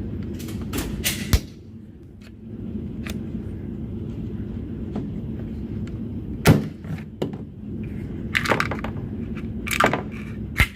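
Scattered sharp clicks and knocks over a steady low rumble, the loudest about six and a half seconds in.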